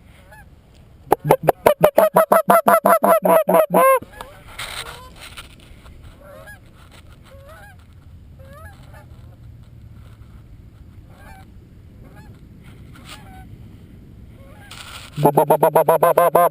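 A goose call blown hard in two fast runs of loud, evenly spaced clucks, about a second in and again near the end: a hunter calling to a flock of geese. Faint honks from distant geese come through in the pause between the runs.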